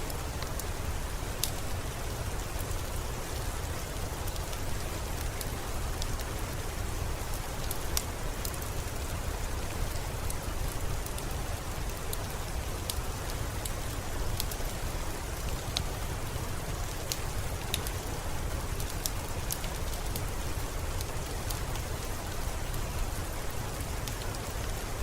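Steady rain falling, with scattered sharp pops and crackles from a wood fire, irregular and a few per second.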